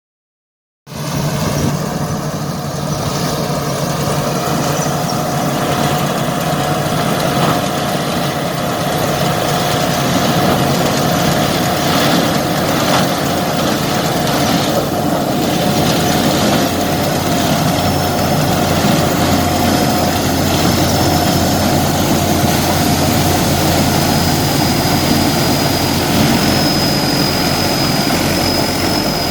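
Engine-driven corn sheller running steadily at a loud, continuous level, with a steady hum and a thin high whine that comes in about halfway through.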